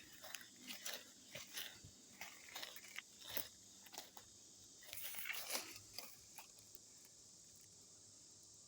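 Irregular crunching and crackling of dry leaves and twigs in the woods, which stops about six seconds in.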